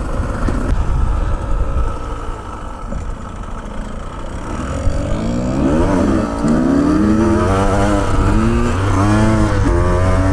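Dirt bike engine heard from on board, running steadily at first, then revving up and down in a series of rising and falling pitches from about halfway through.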